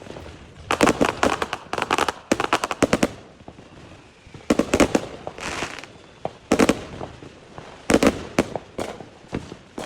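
Fireworks going off in quick clusters of sharp cracks and pops, a new burst of crackling every second or two.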